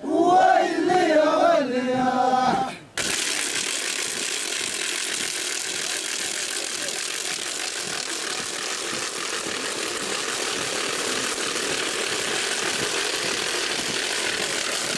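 A crowd of voices singing and chanting together, cut off abruptly about three seconds in; a steady, even hiss without any tune or rhythm fills the rest.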